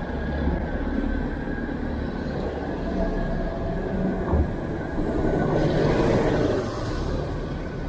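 City street traffic heard from a bicycle: car and bus engines running close by as a steady rumble. A short knock comes about four seconds in, and a louder rushing pass swells for a couple of seconds about five seconds in.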